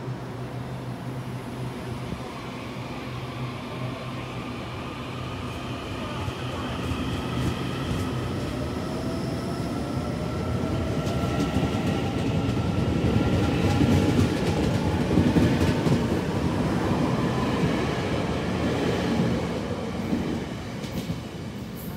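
Taiwan Railways EMU900 electric multiple unit pulling away from the platform. A steady low hum while it stands gives way to a whine that rises in pitch as it accelerates, with wheel and rail noise growing to its loudest about two-thirds of the way through, then easing as the cars pass.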